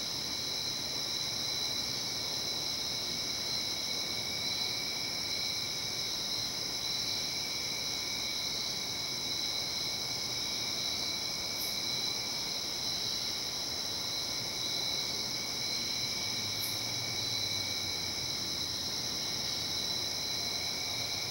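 Steady chorus of night insects, a continuous high-pitched drone at several pitches over faint hiss.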